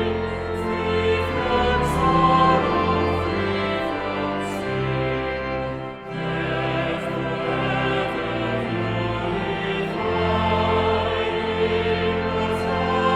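Choral music: a choir singing a slow piece with long held notes, with a brief break about six seconds in.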